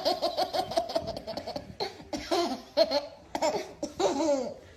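Baby laughing: a quick run of giggles, then several longer belly laughs, each falling in pitch.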